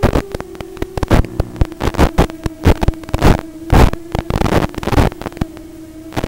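Audio track of an analog FPV video link: a steady electronic hum broken by crackles and loud bursts of static, the loudest around the middle, as the video signal breaks up.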